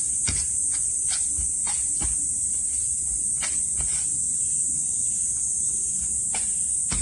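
Steady high-pitched drone of insects in the trees. Over it, a martial artist's footwork and strikes on stone paving: about a dozen sharp stomps, scuffs and slaps at irregular intervals, the strongest right at the end.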